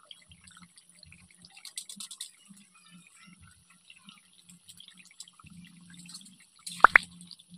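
Chicken and potato curry simmering in a karai, with quiet, irregular bubbling pops. Near the end come a couple of sharp, loud clicks.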